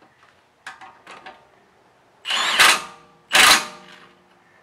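Milwaukee cordless impact wrench tightening the nut on a lower rear shock mounting bolt: a few light metal clicks, then two short bursts of hammering, about a second apart.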